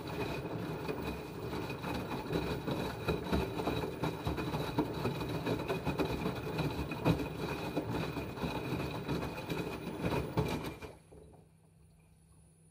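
Paintbrush tip dabbing and scraping on stretched canvas, close to the microphone: a rapid, uneven run of small taps as acrylic dots go on one after another. It stops abruptly about a second before the end.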